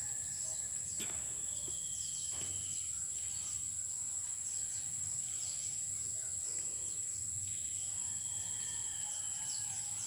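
Steady, high-pitched trilling of insects, unbroken throughout, with scattered short bird chirps over it.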